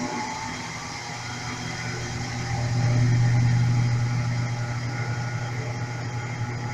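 Brastemp Clean 5 kg top-loading washing machine in its intermediate spin after draining: motor and wash basket running with a steady low hum that swells about three seconds in, then eases back.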